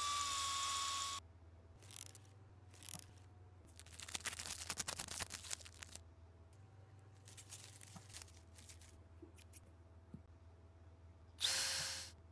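A small motor, like a hand drill, running in two short bursts: one lasting about a second at the start, another shorter one near the end. In between come clicks and rattling, loudest around the middle.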